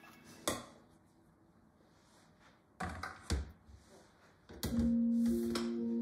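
A plastic cutting board set down on a kitchen countertop with a couple of thunks, then a chef's knife laid on it with further knocks. Soft instrumental music comes in near the end.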